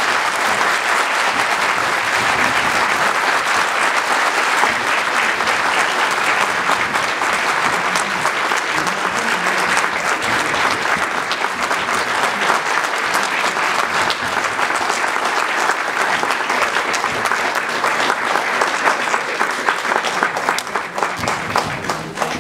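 Audience applauding: a long, steady round of clapping from a hall full of people that thins out near the end.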